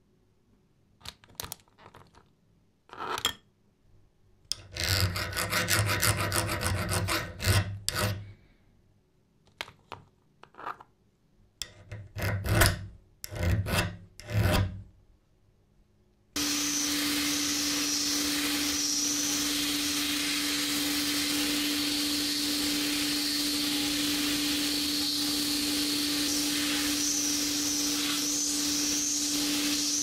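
Hardness tester files drawn across a hardened and tempered H13 tool-steel die, first in a longer run of rasping strokes and then in a few short strokes: a file-hardness test, in which the 55 HRC file scratches, putting the steel between 50 and 55 HRC. About halfway through, the filing gives way suddenly to the steady hiss of a glass-bead sandblaster in a blast cabinet, with a steady hum under it.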